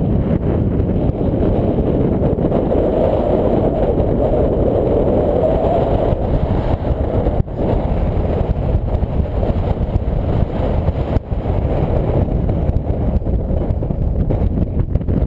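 Strong wind buffeting the microphone: a loud, continuous rumble of gusts, with brief lulls about seven and a half and eleven seconds in.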